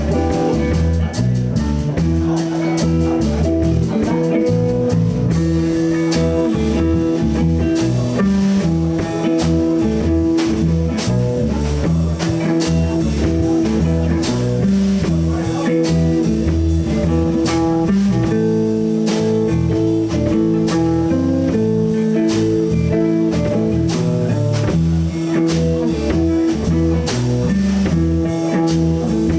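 Live blues band playing an instrumental passage: guitar over bass guitar and a drum kit, with a steady beat.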